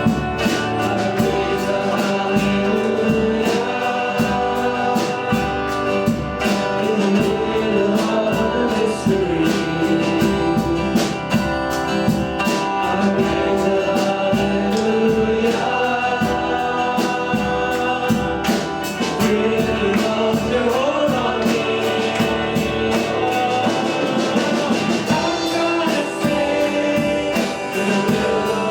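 Worship music: a group of voices singing a gospel-style song together over instrumental accompaniment with a steady beat.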